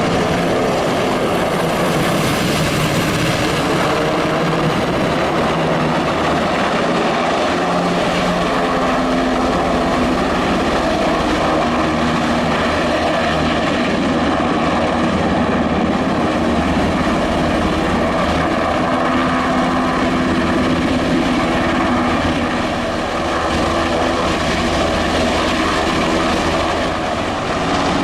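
Helicopter running steadily, a loud continuous engine and rotor noise with a steady hum under it.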